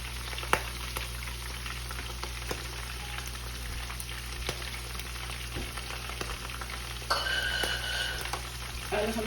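Green chillies and freshly added curry leaves sizzling and crackling in hot oil for a tadka, the stove just turned off. A short steady high-pitched tone sounds for about a second, some seven seconds in.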